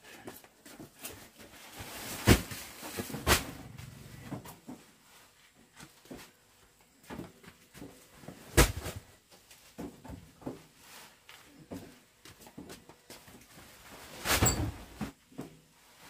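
Heavy sacks of rice being unloaded and dropped, landing with four loud thumps, the last one longer, with quieter knocks and scuffing in between.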